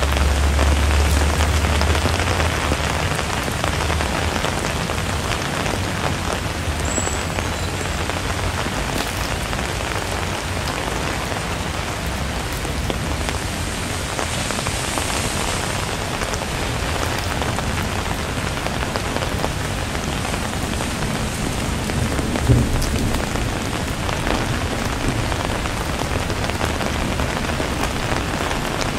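Steady rain falling and pattering on surfaces, with a low rumble in the first couple of seconds and a single brief thump about 22 seconds in.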